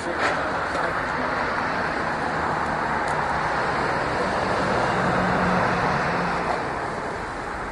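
Road traffic: a motor vehicle passing, its tyre and engine noise slowly swelling to a peak and fading again. There is a short knock right at the start.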